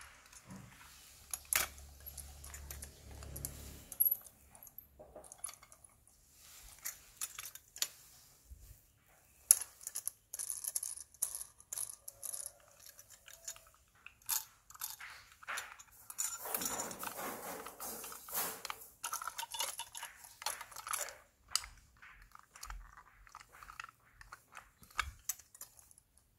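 Handling noise from a die-cast scale model truck being turned over in the hand: scattered clicks and light knocks of its metal and plastic parts, with a longer stretch of rubbing and rattling about two-thirds of the way through.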